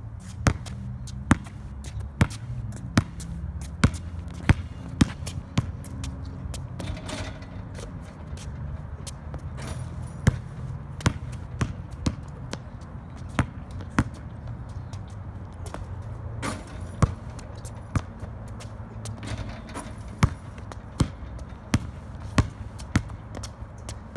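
Basketball dribbled on a concrete driveway: sharp, regular bounces about every three-quarters of a second, with a couple of short pauses, over a low steady rumble.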